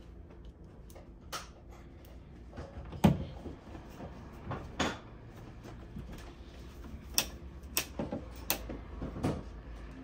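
Screwdriver clicking and scraping against a plastic switch wall plate and its screws as the plate screws are worked out: a string of separate sharp clicks, the loudest about three seconds in.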